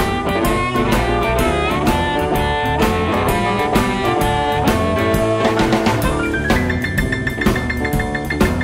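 Electric Chicago blues band playing an instrumental break: a lead line with bending notes over a steady drum-kit beat. About two-thirds through, the lead turns to a high note repeated quickly.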